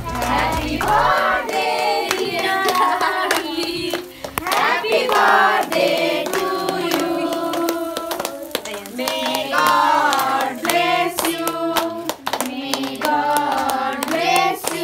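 A group of people singing together with hand-clapping along, a birthday song sung around the cake.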